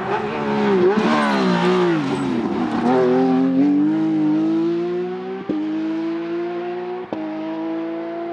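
Rally car engine slowing with its pitch wavering and falling, then climbing steadily under hard acceleration. Two quick upshifts break the note, about five and a half and seven seconds in.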